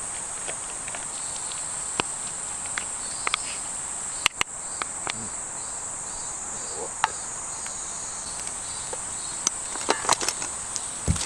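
A steady, high insect chorus, with scattered sharp clicks and knocks and a small cluster of knocks near the end.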